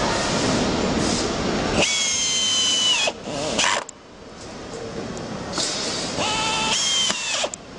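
A loud steady rushing noise, then a hand-held electric screwdriver driving screws into window-hardware fittings on a PVC sash. Its motor whines in two short runs, the first about two seconds in and lasting about a second, the second starting about five and a half seconds in and lasting about two seconds.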